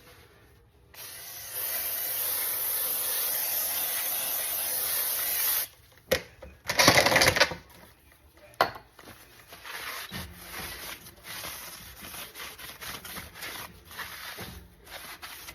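An aerosol can of brake cleaner sprays in one steady hiss of about four seconds, washing the factory anti-rust grease off a new brake rotor. Just before the middle there is a short loud burst, and after it light rubbing and clicking.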